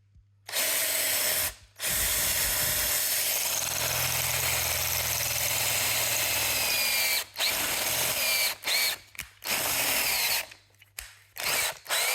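Electric drill boring a hole through a metal engine-mount piece. It starts about half a second in, stops briefly, then runs steadily for several seconds with a thin squeal of the bit in the metal. Near the end it breaks into short on-off bursts.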